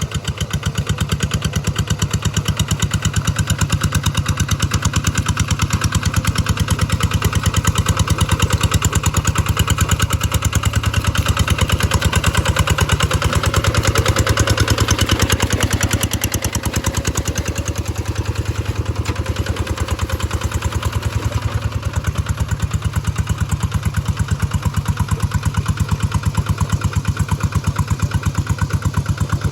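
G1000 engine running steadily with an even firing rhythm. Its note swells and shifts for a few seconds midway, then settles back. The owner says the engine is running wild and blames the fuel tank cap sucking in, a vacuum in the tank.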